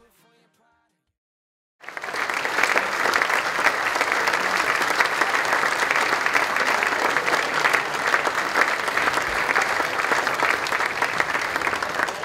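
Audience applause: dense, steady clapping that starts abruptly about two seconds in after near silence.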